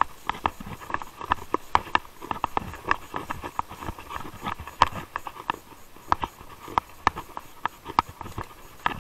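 Mountain bike rolling over a rough dirt and gravel track: irregular sharp clicks and rattles as the bike jolts over bumps, over a steady hiss of tyres on the ground.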